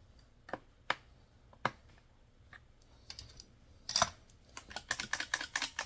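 Small sharp clicks and taps of hand work on a chainsaw's plastic and metal parts while screws are snugged up and the throttle is worked. A few separate clicks come early, then a louder knock about four seconds in, then a quick run of clicks near the end.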